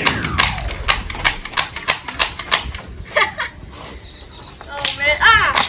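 Nerf Pro Gelfire gel blasters firing in quick succession, a sharp click with each trigger pull, which loads and shoots a gel round in one stroke. The shots come several a second at first and grow sparser after about three seconds. A voice cries out near the end.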